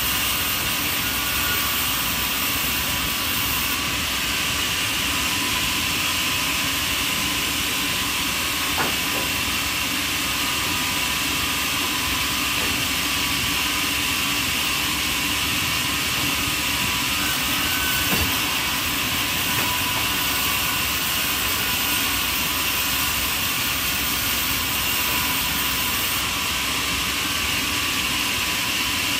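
Steady, unchanging machine noise with a hiss, holding level throughout, with a faint click about nine seconds in and another around eighteen seconds.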